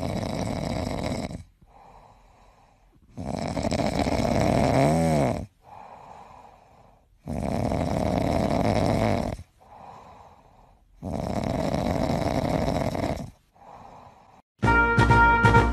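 Grey shorthaired cat purring as its face is scratched. The rasping purr comes in four loud stretches of about two seconds each, with softer purring in between, rising and falling with its breathing. A short rising-and-falling trill sounds about five seconds in, and music starts near the end.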